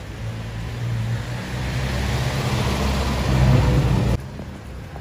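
A motor vehicle's engine running close by with road noise, getting steadily louder as it approaches, then cutting off suddenly about four seconds in.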